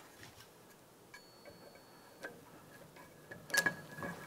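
Light metallic clicks and ticks as the aluminium cylinder head, loaded with valve springs, is handled and set into a valve spring compressor, with a quick cluster of sharper clicks about three and a half seconds in.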